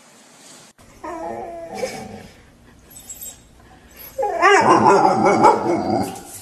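Dog whining in wavering, high-pitched cries. There is a short spell about a second in, then a louder stretch of about two seconds from about four seconds in.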